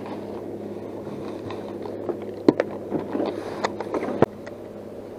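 Knocks and clatter of a plastic Playmate cooler lid being handled, several sharp hits in the second half. Under them runs a steady low motor hum.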